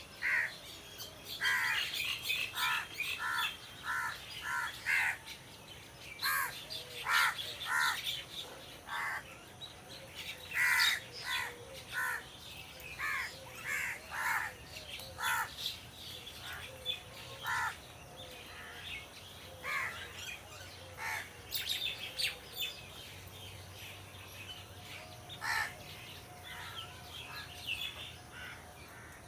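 Crows cawing repeatedly, in quick series of short caws, with smaller birds chirping higher up behind them.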